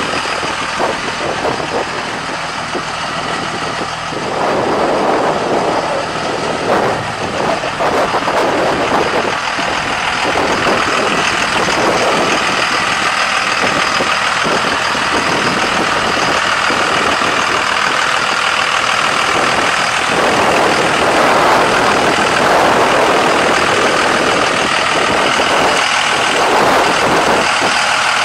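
A 2001 Dodge Ram 2500's 5.9-litre inline-six turbo diesel idles steadily, heard from outside the truck. A rushing noise lies over it and swells a few times.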